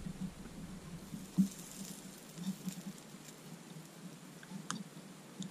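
Faint crackling sizzle of flux at the tip of a small rechargeable soldering iron held on a connector, with a few light ticks. The iron is not putting enough heat into the thick 12 gauge wire for the solder to flow.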